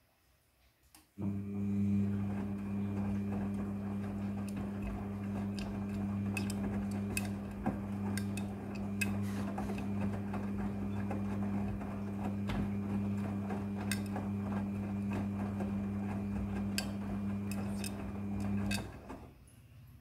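Midea front-loading washing machine turning its drum in the wash cycle: the motor starts about a second in with a steady hum, the tumbling laundry adds scattered clicks and knocks, and the motor winds down and stops near the end.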